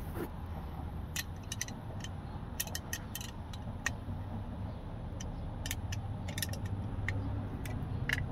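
Scattered light metallic clicks and clinks of open-end wrenches working the nut off a new fuel filter's mounting base, over a steady low hum.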